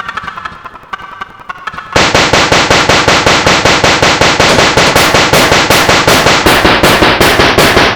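A chopped audio sample looped in a stutter edit. For about two seconds a short pitched snippet repeats quietly, then a loud, noisy burst sets in abruptly and repeats evenly, several times a second, like a rapid string of firecrackers.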